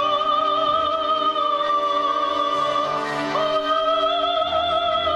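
A woman soloist singing in a trained, operatic style, holding two long notes with vibrato, the second a little higher and starting about three and a half seconds in. She is accompanied by an orchestra of bayans and accordions playing sustained chords.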